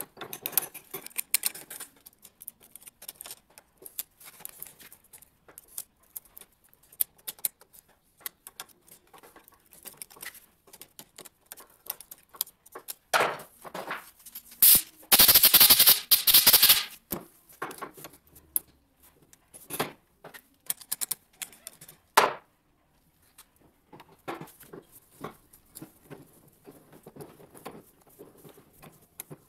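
Ratcheting hand pipe threader clicking and rattling as its die head is worked on a steel pipe held in a yoke pipe vise, with metal-on-metal clicks at an uneven pace. Near the middle comes a loud rushing noise of about two seconds. Near the end the die head is turned off the pipe by hand.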